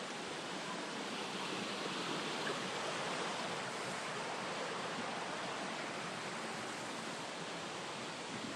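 Rushing water of a mountain creek and waterfall, a steady even roar that swells slightly a few seconds in.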